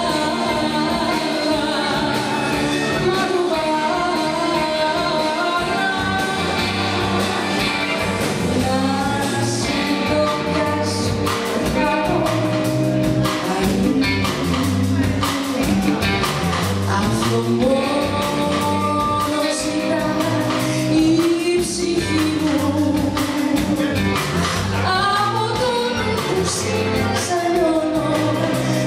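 Live band performance: a woman singing into a microphone over electric guitar, electric bass, keyboards and drums.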